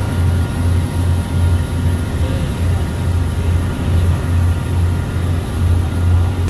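A boat's engine running steadily with a low, even throb, about one and a half pulses a second, over a hiss of wind and water.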